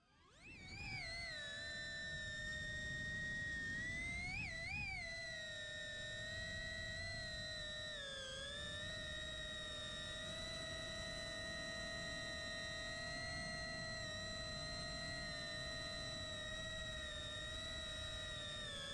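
Small FPV drone's brushless motors and propellers whining steadily, the pitch jumping up twice around four to five seconds in as the throttle is blipped and dipping briefly around eight seconds, then holding steady in flight.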